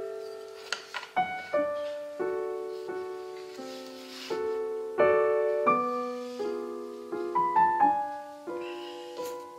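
Background piano music: a slow tune of single notes and chords, each struck and left to ring and fade.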